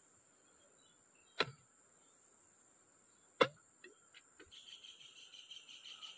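Two sharp knocks about two seconds apart, a stick or knife knocking against a plastic water pipe while it is cleared of a blockage. From about halfway, a rhythmic high insect chirping starts and grows louder over a steady high hiss.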